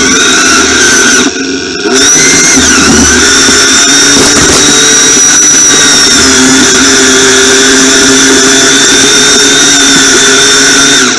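Lawn tractor engine running loud and steady under load, with a high whine over it; the sound drops briefly about a second and a half in, then holds steady.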